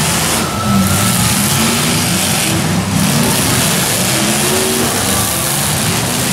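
Several modified demolition derby cars' engines revving at once as the heat gets under way, the pitches rising and falling against each other.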